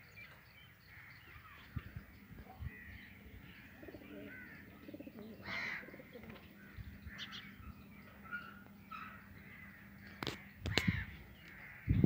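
Birds calling: a string of short, scattered calls, with two sharp knocks near the end.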